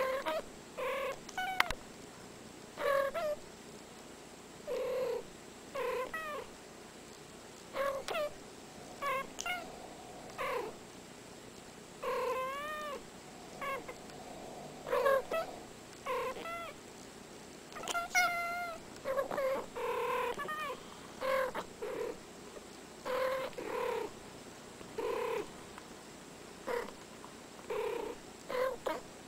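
Two domestic cats calling back and forth in dozens of short meows, a new call every second or two, many gliding up and down in pitch.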